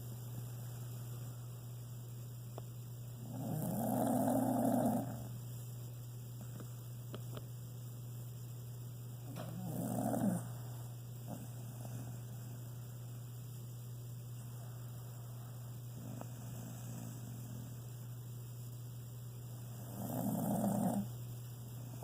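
Snoring: three separate snores, the first and longest about four seconds in, another about ten seconds in and the last near the end, over a steady low hum.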